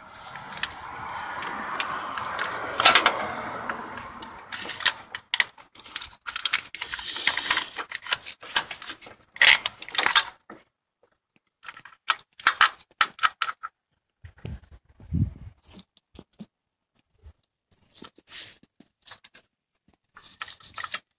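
Handling sounds from a gloved hand working among wiring connectors and hoses in a car's engine bay: rustling at first, then a run of clicks and light rattles. After a short pause about ten seconds in, only scattered clicks follow.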